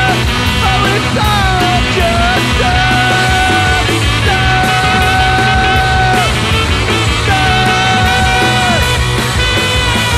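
Rock band playing at full volume: electric guitars, bass and drums with steady cymbal hits. Over them, several long high notes are each held for a second or two and then slide down in pitch.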